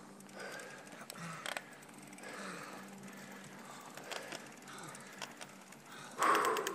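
Mountain bike ridden over sandstone slickrock: uneven ticking, clicking and rattling from the bike, with a louder rush of noise about six seconds in.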